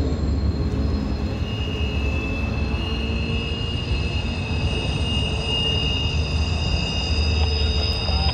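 Intermodal freight train rolling past with a constant low rumble. A high, steady wheel squeal rings over it, coming in strongly about a second and a half in.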